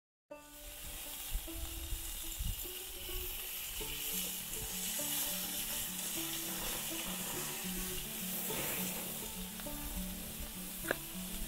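Sausages sizzling on a portable gas grill, a steady frying hiss, with stepping music notes underneath. One sharp click near the end.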